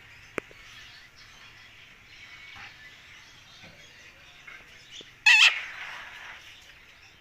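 A pet parrot giving one short, loud, harsh squawk about five seconds in, with faint scattered chirps around it. A single sharp click comes near the start.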